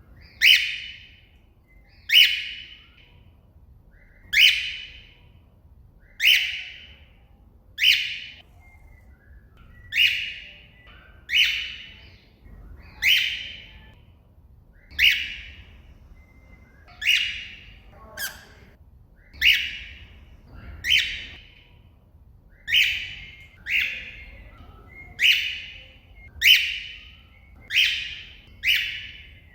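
A cockatiel giving loud, repeated contact calls, one about every one and a half to two seconds. Each call starts sharply and fades away. This is the call a cockatiel uses when calling to another bird.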